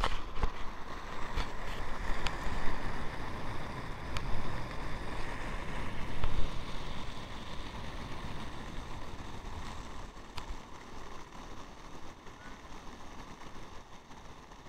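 Skate wheels rolling fast on an asphalt path, with wind rushing over the microphone and occasional sharp clicks. The rolling noise eases off over the last few seconds.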